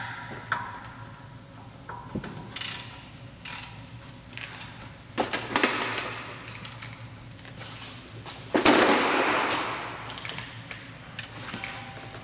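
Scattered metallic clicks, knocks and short scrapes from hands handling parts of a VW Polo 6R rear brake caliper. About two-thirds of the way through comes the loudest sound, a longer scraping rustle lasting a second or so.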